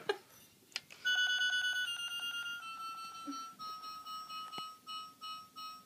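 Electronic beeping from a finger-shock game device. A fast run of beeps starts about a second in, then slows steadily to a couple a second while the pitch steps down.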